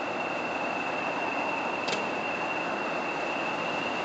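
English Electric Class 40 diesel locomotive idling at a standstill, its 16-cylinder engine running steadily under the constant high whistle of its turbochargers. A short click about two seconds in.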